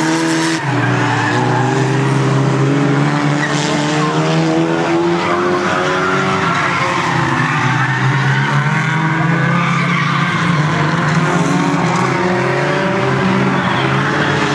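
The engines of several small hatchback oval race cars running hard together, overlapping at different pitches that rise and fall as they race around the track.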